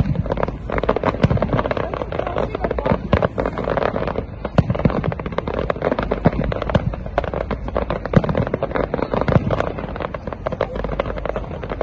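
Fireworks display: a dense, continuous run of bangs and crackles as many shells burst.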